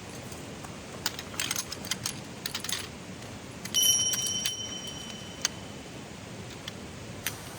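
Small metal objects clinking and jingling in a scatter of light clicks, with one louder metallic clink just under four seconds in that rings on for about a second and a half.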